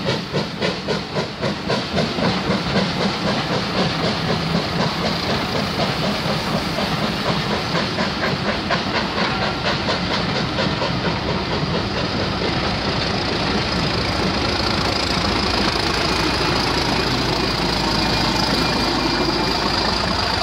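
LMS Black 5 steam locomotive No 45212 chuffing as it pulls away with its train, the exhaust beats quickening and blending into a steady rush as it draws off. In the second half a steady engine hum takes over.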